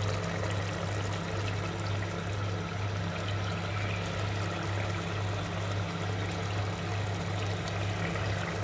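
Mutton sizzling and bubbling in oil and its juices in a pot on low heat, a steady hiss, with a steady low hum underneath.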